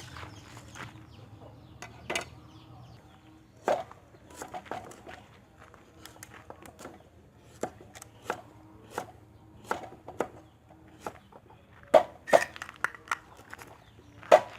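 Knife chopping food on a wooden cutting board: irregular sharp knocks, roughly one or two a second, with the loudest strokes near the end.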